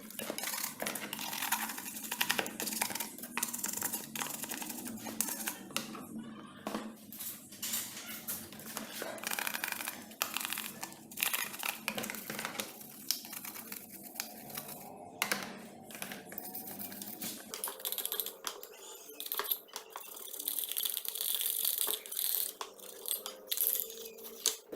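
Irregular clicks, taps and scraping from small hard parts being handled and worked on by hand. A steadier hiss joins in during the last several seconds.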